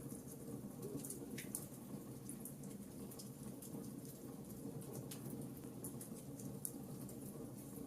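Fireplace fire crackling: many small, irregular pops and ticks over a steady low rumble of burning.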